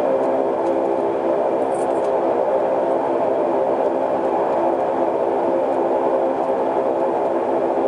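Saab 340B's General Electric CT7 turboprop engines and propellers droning steadily at low power while the plane taxis after landing, heard inside the cabin. The drone is a hum of several steady tones.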